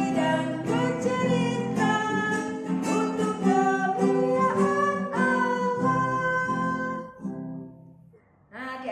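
A woman singing a children's worship song with strummed acoustic guitar. The song ends about seven seconds in and dies away to a brief near silence.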